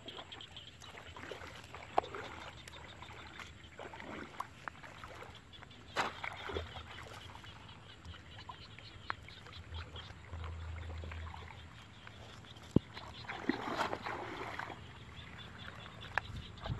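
Shallow field water sloshing and splashing as someone wades and reaches down into a bamboo fish trap. A few sharp clicks stand out.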